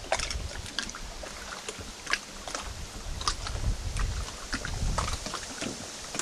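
Wind gusting on the microphone in low rumbling swells, with many irregular light clicks and taps scattered over it.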